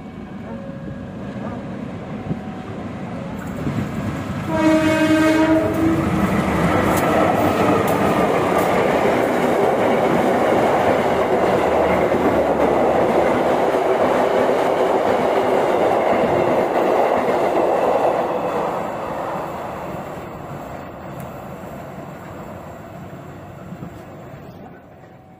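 Diesel-hauled passenger train passing straight through a station without stopping. The locomotive gives one horn blast of about a second and a half about four and a half seconds in. The train then runs past loudly for about twelve seconds, and the noise fades as it moves away.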